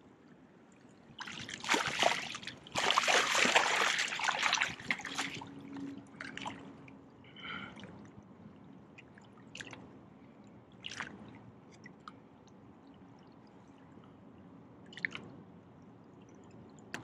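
Water splashing hard for a few seconds as a brown trout is scooped into a landing net and thrashes. Then come scattered drips and small splashes as the fish is handled in the shallows.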